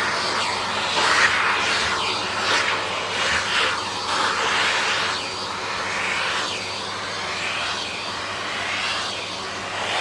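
Vacuum cleaner running with its hose nozzle drawn through a dog's fur; the suction hiss swells and shifts in pitch every second or so as the nozzle moves over the coat.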